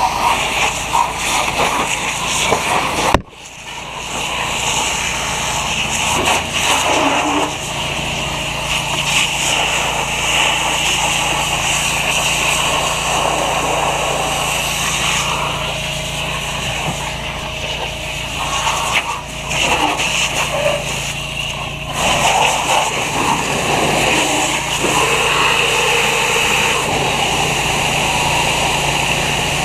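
Fire hose stream spraying water onto a burning car, a steady hiss, with an engine running steadily underneath. A sharp knock comes about three seconds in, after which the sound briefly drops away before the spray picks up again.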